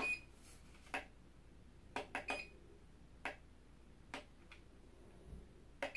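Light plastic clicks and taps from a small drone part being handled and fitted, about nine irregular clicks, with a quick run of three about two seconds in.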